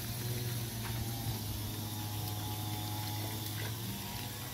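Water running steadily from a tap or hose, with a steady low hum underneath that drops away about four seconds in.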